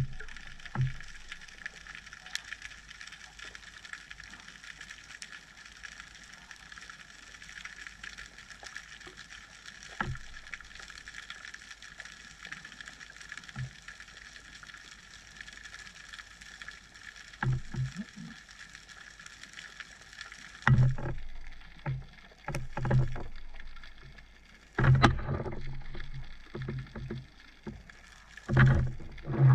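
Underwater ambience heard during a freedive: a steady faint high hum, with scattered short low knocks and bumps that come more often in the last third.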